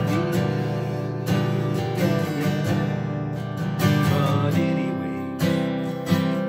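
Acoustic guitar strumming chords, with a fresh strum about every second and the chord changing a few times.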